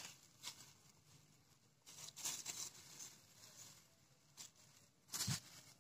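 Black plastic bag rustling and crinkling as it is handled, in several short bursts, the loudest about two seconds in and near the end.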